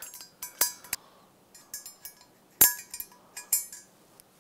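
Small metal valve spring seats clinking as they are set down into the valve pockets of a cylinder head with a small magnet: a string of sharp, light clinks, the loudest about two and a half seconds in.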